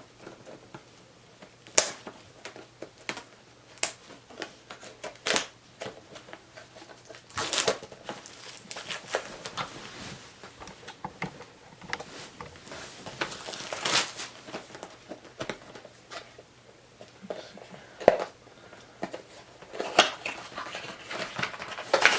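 Product packaging being opened by hand: scattered clicks and taps, with a longer stretch of crinkling and tearing from about 7 to 15 seconds in.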